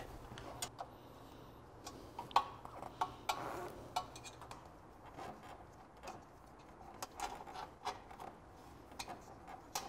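Faint, irregular metallic clicks and light taps of a 5 mm hex key on a folding hex key set, turning the screws that hold the front fender to a mobility scooter's front shocks.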